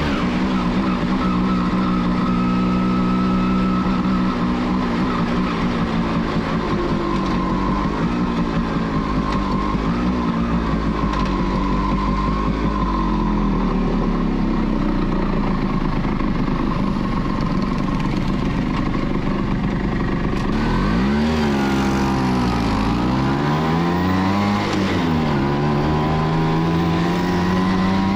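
1989 Kawasaki B1's single-cylinder two-stroke engine running under the rider, recorded onboard. It holds a steady pitch for most of the time, then about three-quarters of the way through rises and falls in pitch several times as it is throttled up and shifted through the gears.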